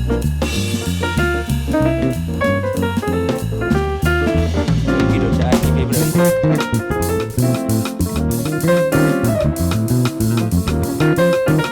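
A live band playing a busy jazz-flavoured groove. A drum kit, a walking bass line and guitar are heard together, with notes changing quickly.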